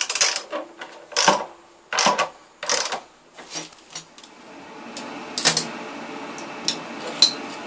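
Ratchet socket wrench clicking in sharp strokes, about one every half second to a second, as the nuts on the water heater's heating-element flange are tightened. After about four seconds the clicking gives way to a steady low hiss with a few faint ticks.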